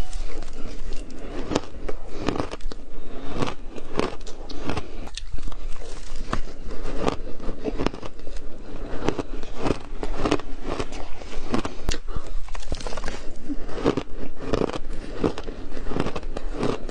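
Crunching and chewing of frozen shaved ice, bitten off a spoon mouthful after mouthful. There are several crisp crunches a second in irregular runs.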